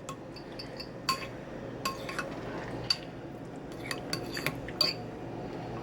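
Metal utensils clinking against dishes: a series of sharp, short ringing clinks, some eight in all, spread through the few seconds, as soup is dished up and stirred.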